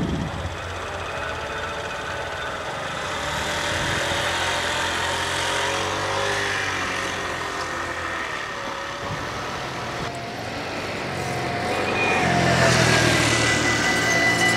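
Road traffic passing over the level crossing: cars going by, with a moped engine growing louder near the end.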